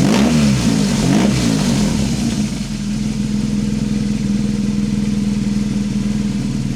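BMW R1200 GS Adventure boxer twin running through a GRmoto slip-on exhaust with the baffle removed, blipped a few times with the throttle and then settling to a steady idle.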